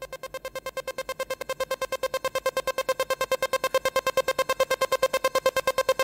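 Electronic background music: a synth tone pulsing rapidly, about ten pulses a second, growing louder and rising slightly in pitch near the end.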